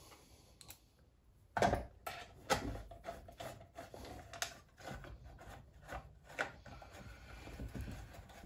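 Scattered small clicks and scrapes of a hand driver seating and turning bolts in an old Jonsered chainsaw's metal housing, with a sharper click about one and a half seconds in.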